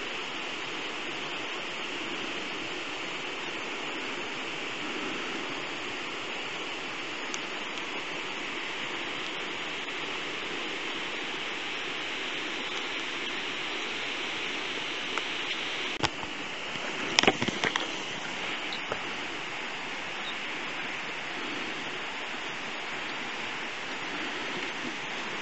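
Steady rush of running water from a mountain stream, with a short cluster of sharp clicks and knocks about two-thirds of the way through.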